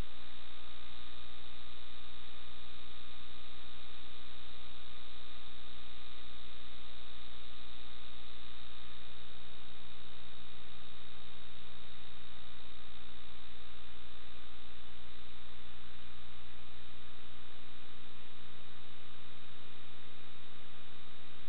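Steady hum and hiss with a constant high whine, unchanging throughout; the deepest part of the hum drops away near the end.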